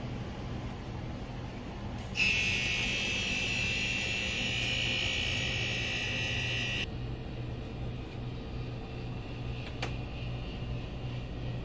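An electronic buzzer tone, several steady pitches held together, starts suddenly about two seconds in, sounds for about five seconds and cuts off abruptly, over a steady low hum. A single sharp click comes near the end.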